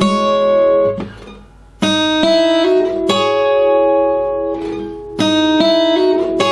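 Acoustic guitar played fingerstyle: single notes and pairs of notes plucked on the top two strings high on the neck, each left to ring. There is a short break in the playing about a second in.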